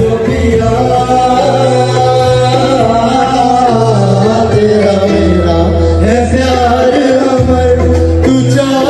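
A man singing live into a handheld microphone, amplified through a PA speaker, over instrumental accompaniment with a stepping bass line.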